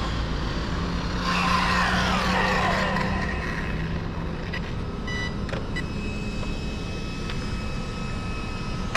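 HongNor X3GT 1/8-scale 8S electric RC car racing past on a speed run. Its motor whine sweeps down in pitch as it passes. A few short high beeps follow midway.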